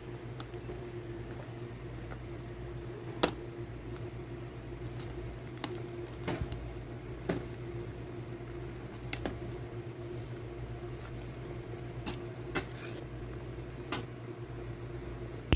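Fish soup simmering in an aluminium pot on a gas stove, over a steady low hum, with about seven light clicks and taps scattered through as a ladle stirs in the pot.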